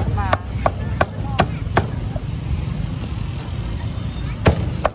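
Cleaver chopping roasted meat on a wooden block: sharp knocks about three a second, a pause of a couple of seconds, then two more near the end. Voices and a steady low traffic rumble underneath.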